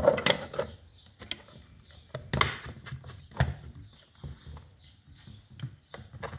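A lithium battery pack being handled and fitted into its blue plastic box: rustling and scraping at first, then scattered knocks and clicks of the plastic box and lid, the two loudest about two and a half and three and a half seconds in.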